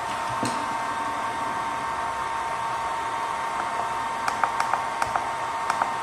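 Light clicks from the keys of a variable frequency drive's front keypad being pressed to step through parameters: a quick run of several from about four seconds in, then two more near the end. Under them is a steady background hiss with a faint steady tone.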